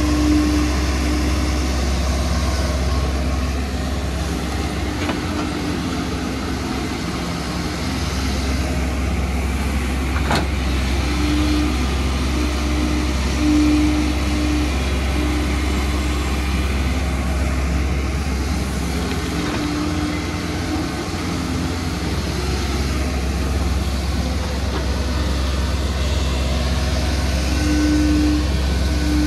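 Diesel engines of crawler excavators, a Kobelco nearest and a Hyundai beyond, running steadily as they dig, with a humming tone that comes and goes. A single sharp knock about ten seconds in.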